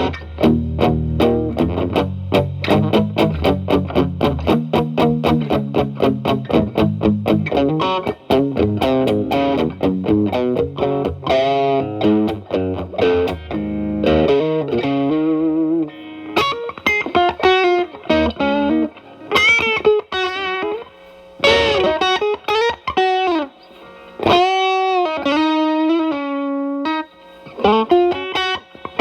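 Electric guitar (Telecaster) through an E.W.S. Brute Drive distortion pedal set to low gain, into a Marshall Valvestate amp's clean channel, giving a lightly overdriven tone. The first half is fast, even chord strumming; the second half is a single-note lead line with bent notes.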